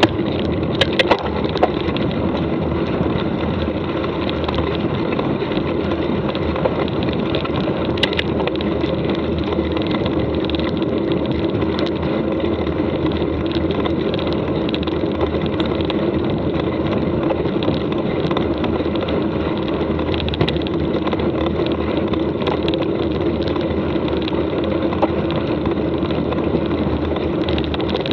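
Mountain bike riding over a dirt track: a steady rolling rumble of tyres and the bike, with a few sharp clicks and knocks.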